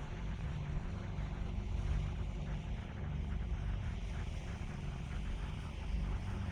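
Strong wind buffeting the microphone as a steady, uneven low rumble, with the sea behind it.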